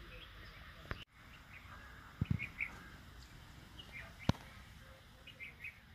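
Small birds chirping in short, scattered calls. A low double thump a little after two seconds and a sharp click a little after four seconds are the loudest sounds.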